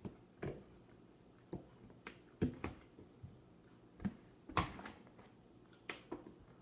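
A giant fork and a large spoon clinking and scraping against a plate as pasta is scooped onto the fork: a handful of separate sharp clicks and knocks, the loudest about two and a half and four and a half seconds in.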